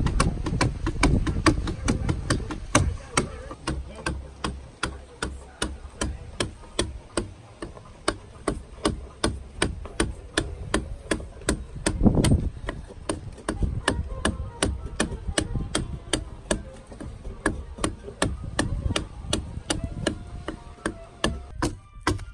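Elbow adzes chopping into the cedar hull of a dugout canoe, a steady run of sharp strikes about three a second as chips are taken off the outside of the hull.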